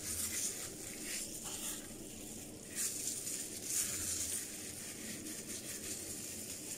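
Soft rustling and squishing of plastic-gloved hands working blended avocado paste through hair, in a few brief swells over a faint steady hiss.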